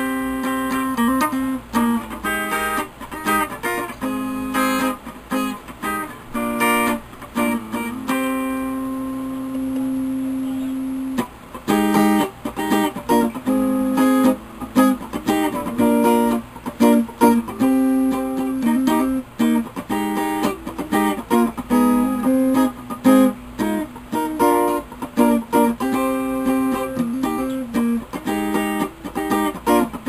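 Jay Turner Stratocaster-style electric guitar played through a bass amp: a run of picked notes and short phrases, with one note held and left to ring for about three seconds some eight seconds in.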